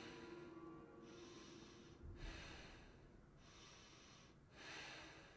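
Slow, heavy breathing by a person, one breath about every second and a half. A low steady drone fades out and a dull low thud comes about two seconds in.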